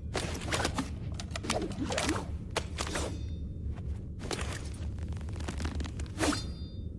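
Katanas being swung and struck: irregular clusters of sharp swishing and scraping metal strokes, two of them trailing a brief high ring, over a steady low hum.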